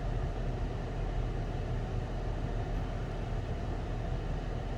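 Steady low mechanical hum with no change or distinct events.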